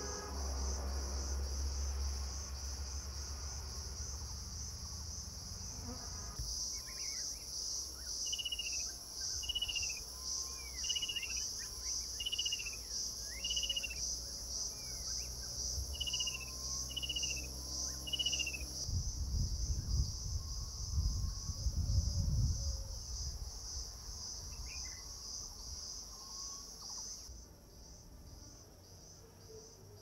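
Steady, high, rapidly pulsing drone of insects, with a bird repeating a short clear call that slurs downward, about once a second for some ten seconds near the middle. A low rumble swells and fades a little later.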